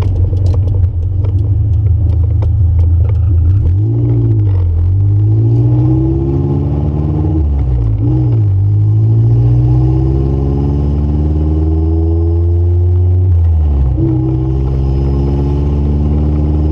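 Honda Civic EF sedan's four-cylinder engine heard from inside the cabin. It runs low and steady at first, then accelerates from about four seconds in. Its pitch rises through each gear and drops at gear changes about eight and about fourteen seconds in.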